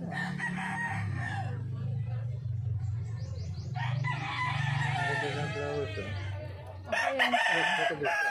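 Roosters crowing: one long crow about halfway through and a louder one near the end, over a steady low hum.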